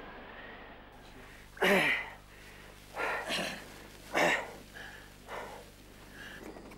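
Steady wind with a faint wavering whistle for about a second. Then a person close by coughs in short loud bursts, about a second apart, one of them doubled, followed by a few fainter breaths and sniffs.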